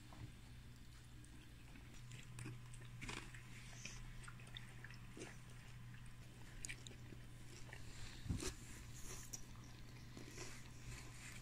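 Faint chewing and biting sounds of someone eating a fajita wrap, with scattered small clicks over a low, steady hum.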